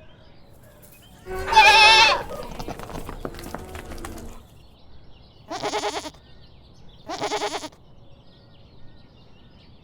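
Goats bleating: one loud, wavering bleat about a second in, then two shorter bleats in the middle, with fainter bleats behind them.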